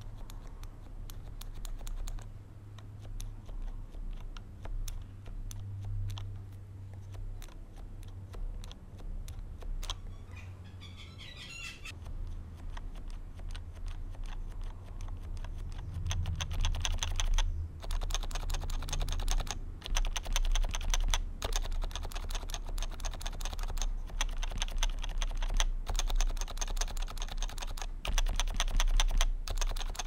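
Typing on a Happy Hacking Keyboard Professional 2 with Topre electrostatic capacitive rubber-dome switches: a continuous run of keystrokes. The keystrokes grow louder and denser about halfway through, with a few brief pauses.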